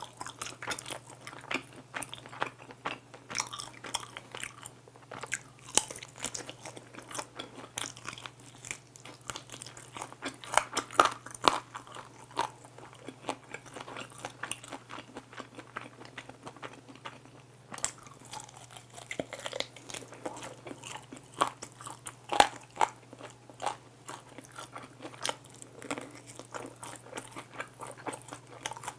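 Close-miked biting and chewing of soy-glazed fried chicken wings: repeated irregular crunches of the crisp coating, with a short lull a little past halfway.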